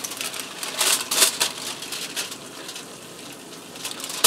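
Wooden spoon scraping and clattering in an enamelled cast iron skillet as caramelized onions are tipped into the gravy and stirred in. The bursts are loudest about a second in, and there is a sharp knock right at the end.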